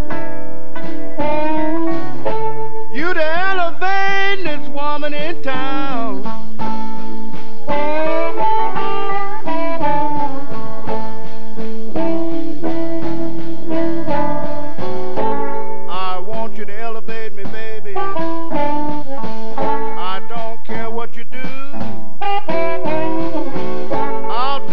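Live electric blues band playing, with hollow-body electric guitar and a lead line that bends and wavers in pitch.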